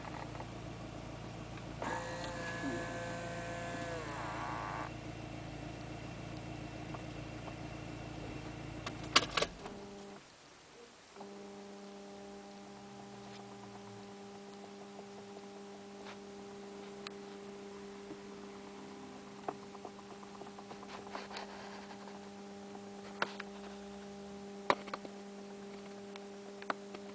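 Chevrolet Astra engine running, then switched off after a couple of sharp clicks about nine seconds in. A steady electric hum keeps going after the engine has stopped, with scattered faint ticks: this is the noise the car makes when it is turned off.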